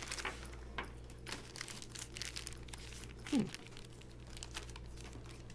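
Packaging being handled: irregular crinkling and rustling of plastic or paper wrapping around replacement laptop parts.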